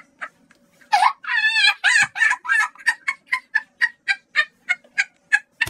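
Domestic fowl calling: a warbling call about a second in, then a steady run of short clucks at about three a second.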